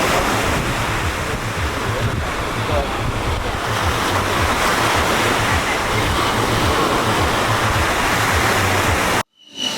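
Ocean surf washing onto the beach, with wind buffeting the microphone in low rumbles; it cuts off suddenly near the end.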